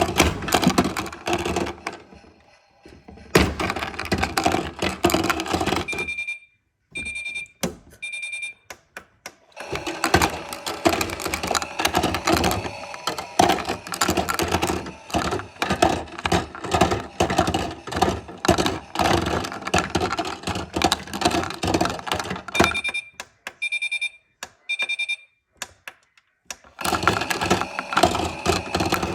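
Three short electronic beeps from a Miele washing machine's signal tone, repeated a second time some fifteen seconds later. Over it runs a dense, rapid clicking and rattling.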